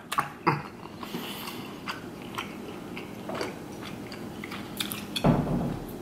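Close-miked chewing of buttered shrimp and lobster meat, with small wet mouth clicks. About five seconds in there is a louder, deeper thump.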